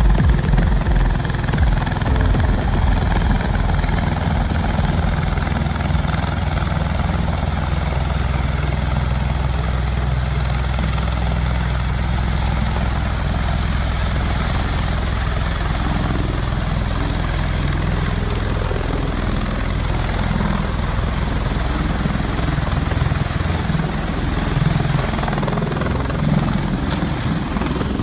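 MV-22 Osprey tiltrotor hovering close overhead: loud, steady rotor and turboshaft engine noise, with rapid low buffeting in the first couple of seconds.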